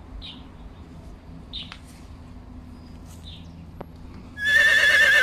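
Plains zebra calling: a loud, high call with a wavering pitch that starts about four seconds in and lasts about a second, over a low steady background.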